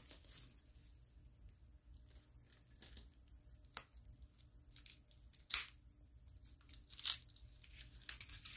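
Plastic stretch wrap crinkling and tearing in short, scattered crackles as it is cut and pulled away with a folding knife.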